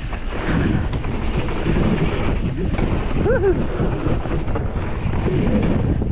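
Wind buffeting the microphone and tyres running over a dirt trail as a hardtail mountain bike descends at speed. A brief rising-and-falling tone comes about three seconds in.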